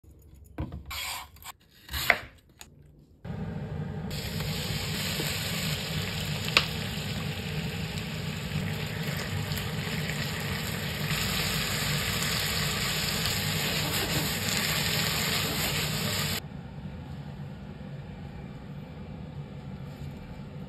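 A few short sharp knocks, then sliced lotus root sizzling in a frying pan, with a steady loud hiss that cuts off suddenly about three-quarters of the way through.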